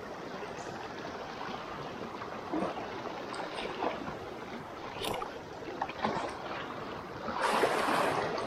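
Small swells lapping and trickling over shallow rocks at the water's edge, with a few light clicks and a louder wash of water near the end.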